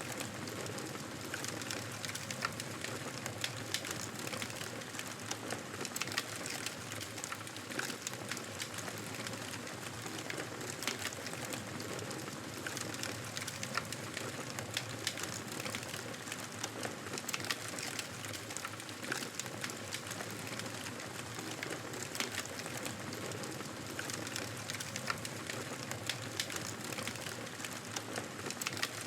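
Wood campfire burning with steady crackling, dotted throughout with many small sharp snaps and pops.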